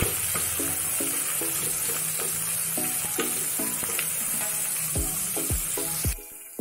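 Sliced onions sizzling in hot oil and ghee in an aluminium pressure cooker, stirred with a wooden spatula. The sizzle cuts off suddenly about six seconds in.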